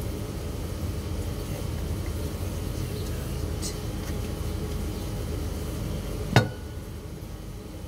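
A steady low rumble, and one sharp knock with a short ringing tone about six seconds in.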